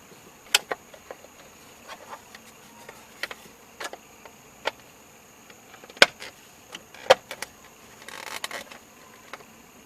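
Hard plastic clicks and knocks from steering column cover pieces being handled and pressed into place, the sharpest snaps about 6 and 7 seconds in, with a short rustling scrape after 8 seconds.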